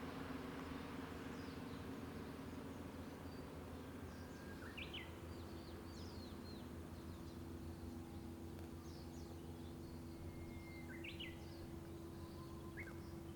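Wild birds giving short chirps that sweep down sharply, in a cluster about five seconds in and again twice near the end. Under them runs a faint, steady low hum of road traffic.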